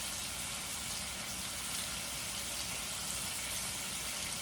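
Tri-tip steaks sizzling steadily in butter in a hot stainless steel pan as they sear.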